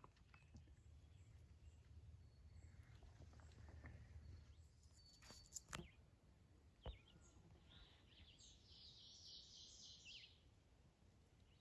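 Faint quiet woodland ambience with a low rumble; a couple of sharp clicks come in the middle, and a bird sings a quick run of high chirping notes for about two seconds near the end.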